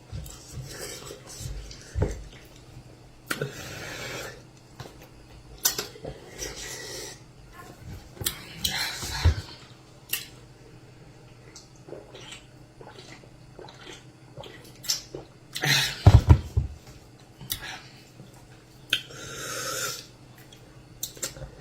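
Close-miked eating of amala and soup: irregular chewing and mouth sounds, with scattered sharp clicks and clinks of dishes and cutlery.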